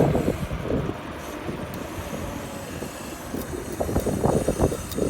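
Wind buffeting the microphone while riding a bicycle, with a rumbling road noise that eases in the middle and swells again near the end.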